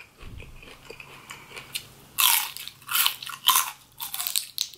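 A raw celery stalk being bitten and chewed: a loud crisp crunch about two seconds in, then a string of shorter crunches as it is chewed.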